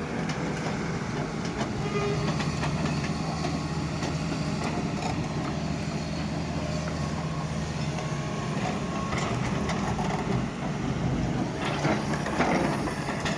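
Doosan excavator working: its diesel engine runs steadily under load, with scattered knocks and clanks from the bucket and arm, and a louder clatter of knocks near the end.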